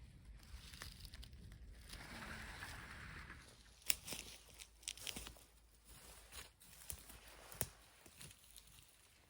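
Dry leaves and twigs on the forest floor rustling and crackling: a soft rustle about two seconds in, then a handful of sharp snaps and crunches.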